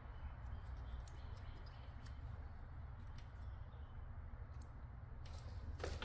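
Faint, scattered clicks and light rattles of hands handling a new ignition coil and its connector in the engine bay, over a low steady hum.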